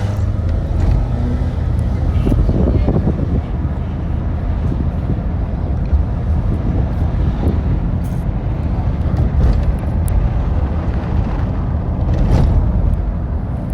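Busy city street traffic: a steady low rumble of vehicle engines and road noise, with a few short knocks.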